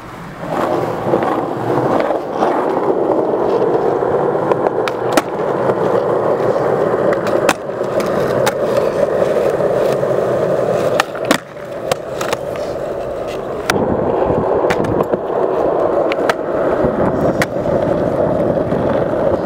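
Skateboard wheels rolling on a concrete car-park deck: a steady rumble with repeated sharp clicks and knocks, briefly dropping away about eleven seconds in.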